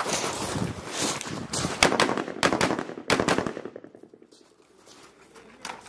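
Small-arms gunfire on an outdoor range: a quick string of sharp shots that thins out after about three and a half seconds into a short lull, with one more shot just before the end.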